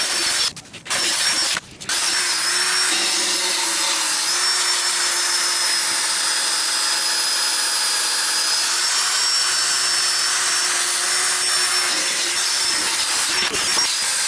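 Handheld power tool running steadily as it scrubs rust off a car's rusted-through exhaust pipe, cleaning it for a fire-cement repair. It stops briefly twice in the first two seconds, then runs on without a break.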